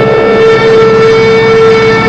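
A loud, steady air-raid siren tone sounding over the drone of low-flying biplane engines.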